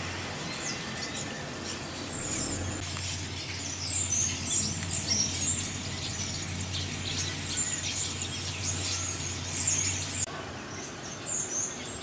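A flock of common starlings chattering with many overlapping high chirps and whistles, loudest from about four seconds in. A steady low hum runs underneath.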